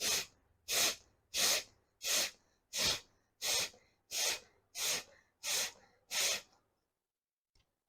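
Kapalbhati breathing through the right nostril, the left held closed: ten sharp, forceful exhalations through the nose, about three every two seconds, stopping a little after two-thirds of the way in. The blasts are done after jal neti to force the leftover water and phlegm out of the nasal passages.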